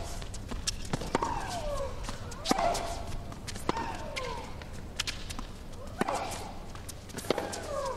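Tennis rally: the ball struck by rackets and bouncing about every second or so. Many of the shots come with a player's falling shriek or grunt.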